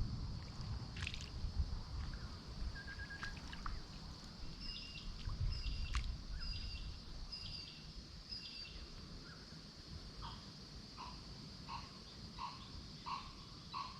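A steady high insect drone, with a bird giving a short two-note call five times, about once a second, in the middle. Near the end a lower call repeats about every 0.7 s, and wind rumbles on the microphone in the first half.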